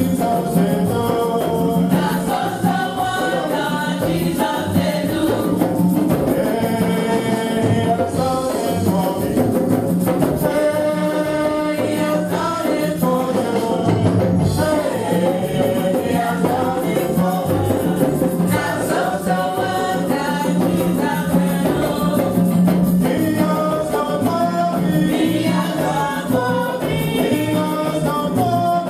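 Congregation singing a gospel hymn with a steady beat, accompanied by shakers or tambourines.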